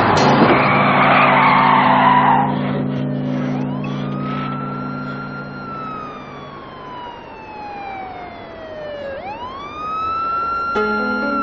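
Police car siren wailing: one slow rise, a long falling glide, then a second rise near the end. For the first two seconds or so a loud rushing noise covers it, with a steady low drone underneath.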